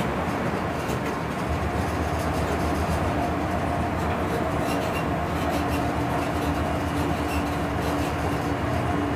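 Cab of a DB class 139 electric locomotive under way: a steady rumble of the train running on the rails, with a faint steady hum joining in about a second and a half in.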